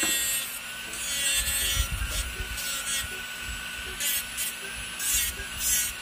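Electric nail drill with a white sanding (buffing) bit running with a steady high whine, grinding the natural nail in short repeated passes that each add a brief gritty hiss. It is smoothing the nail surface after gel removal.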